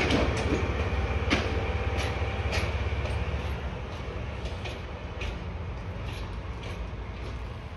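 Red DE10 diesel locomotive running as it moves through station trackwork, its engine giving a low drone while the wheels clank sharply over rail joints and points. The clanks are loudest in the first three seconds, then fainter, and the engine drone drops away about halfway as the locomotive draws off.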